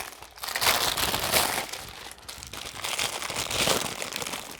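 Plastic packaging crinkling and rustling in uneven bursts as a silicone kneading mat is unwrapped and handled, loudest about a second in and again near the end.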